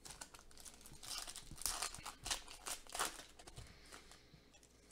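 Foil wrapper of a Leaf Draft football card pack crinkling and tearing as it is ripped open by hand, a run of sharp crinkles loudest in the middle.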